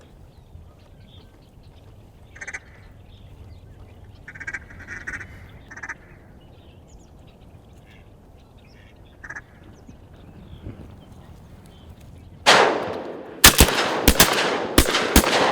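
Scattered duck quacks, then about three seconds from the end a rapid volley of roughly seven or eight shotgun shots from several guns as the mallards are shot at.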